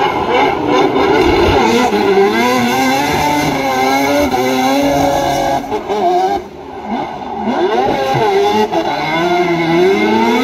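Mazda RX-7 FD3S drift car's rotary engine revving hard, its pitch swinging up and down as the tyres spin and screech. The revs drop briefly about two-thirds of the way through, then climb again.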